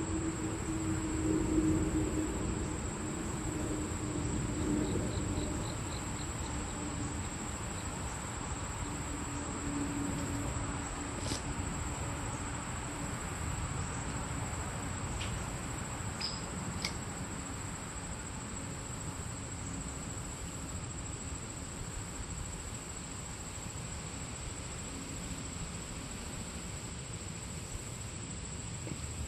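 Insects chirring in one steady high-pitched note throughout, over a low steady rushing noise, with a faint low drone in the first ten seconds and a few small clicks.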